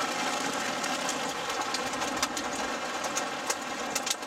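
Heavy rain drumming steadily on a vehicle's roof and glass, heard from inside the cab, with a few sharp ticks of small, dime-size hailstones striking the vehicle near the end.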